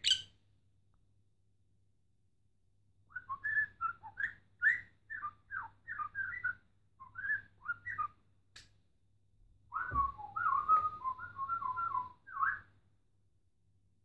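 Whistling in two phrases: a broken run of short whistled notes that rise and fall, then after a pause a quicker run of notes at a near-steady pitch. A soft thump comes as the second phrase starts.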